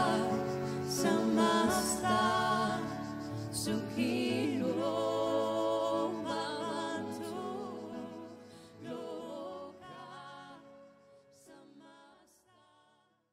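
Music with singing voices over low held notes, fading out steadily through the second half until it dies away just before the end.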